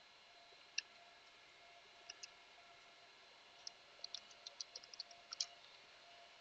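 Faint clicks of computer keyboard keys, typed one at a time at first and then in a quick run of about ten keystrokes, as a terminal command is entered.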